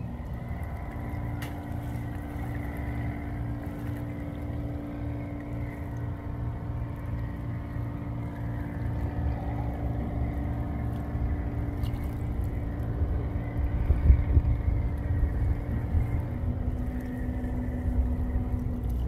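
A boat engine running steadily out on the river, its pitch stepping up slightly near the start and back down near the end, over a low rumble.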